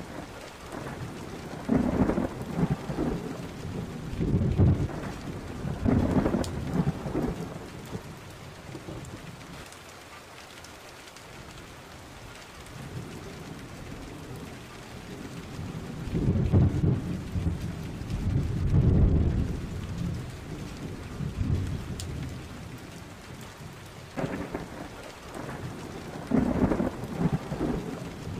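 Thunderstorm: steady rain with several long rolls of low thunder rumbling over it.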